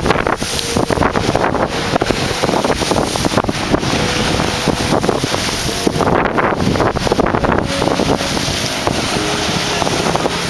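Strong gusting wind buffeting the microphone, over lake waves splashing against a seawall.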